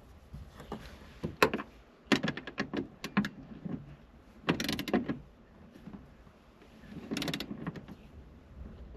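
Ratchet wrench clicking in short strokes with a few metal knocks while the accelerator pedal's mounting bolts are tightened by hand. There is a scattered run of clicks about two seconds in, then two short, dense bursts of ratcheting about halfway through and near the end.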